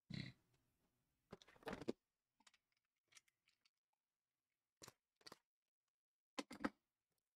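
Short bursts of scraping and rustling as a sealed 2022 Prizm football card box is handled and opened. There are four bursts with quiet in between.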